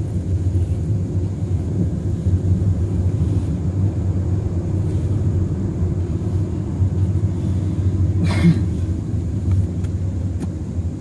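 Steady low rumble of a car's engine and tyres heard from inside the cabin while it drives, with one short, sharper sound about eight seconds in.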